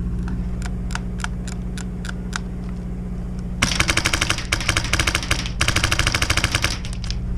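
Airsoft gun firing on full auto in a few rapid bursts, starting about three and a half seconds in and lasting around three seconds, with scattered single clicks before it, over a steady low hum.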